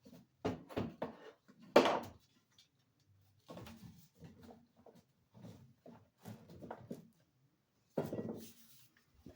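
Kitchen handling sounds while cooking: a few sharp knocks and clanks of cookware in the first two seconds and again near the end, with a run of softer scraping sounds in between, like stirring and working food in a pot.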